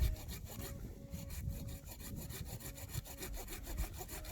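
Saw cutting through wood for a campfire, with quick, even back-and-forth strokes.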